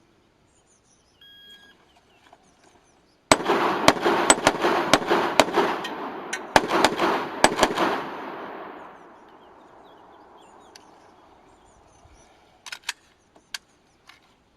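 Shot-timer beep, then about two seconds later a rapid string of about ten semi-automatic pistol shots over some four and a half seconds, the echo trailing off after the last. A few light clicks come near the end.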